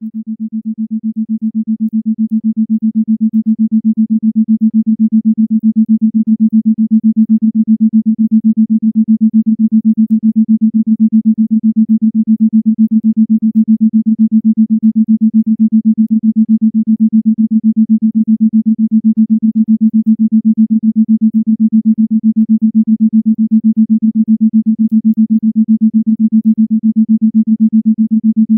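Isochronic tone: a single low, steady electronic tone pulsed rapidly on and off at an even rate. It fades up over the first few seconds, then holds steady.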